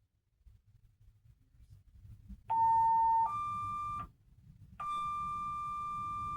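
Two-tone sequential paging tones from a fire and EMS dispatch radio: a lower steady tone, then a higher one, a short pause, and a longer held higher tone, alerting the station to an incoming call.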